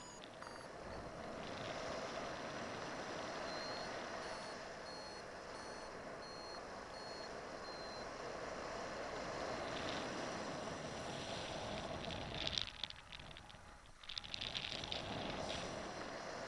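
Airflow rushing steadily over the camera microphone in paraglider flight. For a few seconds a variometer beeps high and evenly, about two beeps a second, the tone a paraglider vario gives in rising air. Near the end louder gusts buffet the microphone.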